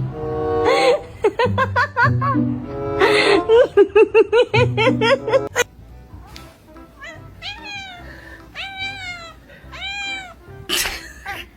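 Background music for the first five and a half seconds, then it stops and a cat meows several times, each call rising and then falling in pitch. A short burst of noise comes near the end.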